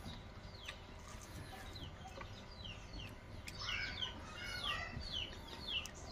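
Chickens clucking and chirping, a run of short, high chirps that fall in pitch, sparse at first and busier about three and a half seconds in.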